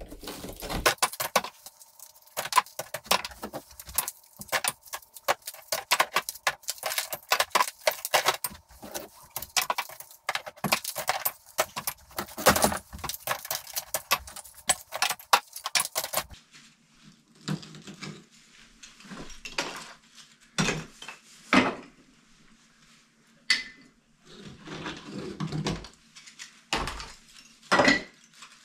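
Old plaster and wooden lath being pulled and broken apart by hand: a dense, continuous run of crackling, clicking and clattering of plaster bits and lath. After about 16 seconds it turns to sparser separate knocks and clacks as lath pieces are handled and dropped into plastic buckets.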